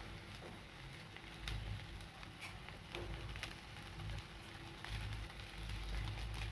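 Vegetables and soya chunks frying in a pan, a soft steady sizzle with a few faint clicks.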